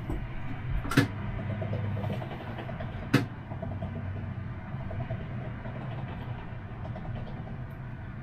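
Siemens Avenio low-floor tram running, heard from the driver's cab as a steady low hum and rumble. Two sharp knocks come through, about a second in and about three seconds in.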